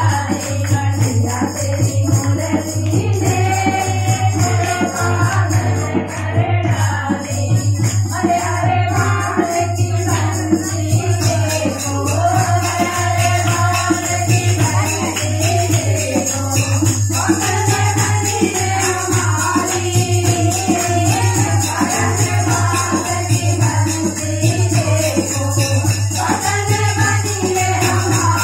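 Group of women singing a Hindi devotional bhajan together in kirtan style. Steady hand-clapping and jingling hand percussion keep the beat under the melody.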